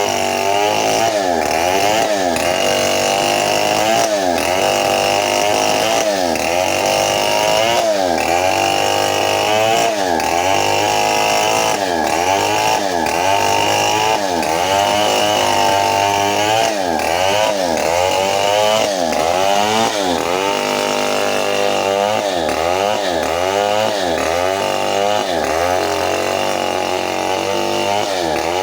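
Stihl 070 two-stroke chainsaw running hard while ripping lengthwise through very old teak. Its engine pitch dips and recovers over and over, about once a second, as the chain loads up in the cut.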